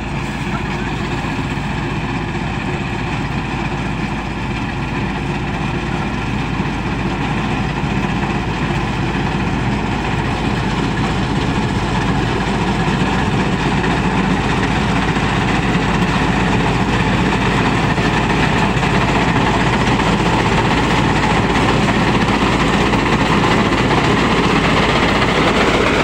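Combine harvester running while cutting rice: a steady engine and machinery drone that grows gradually louder as the machine draws nearer.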